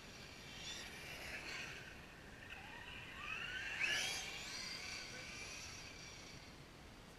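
Traxxas Slash 4WD RC truck's electric motor whining as it drives toward and past close by. Its pitch rises as it approaches and drops as it goes away, and it is loudest about four seconds in.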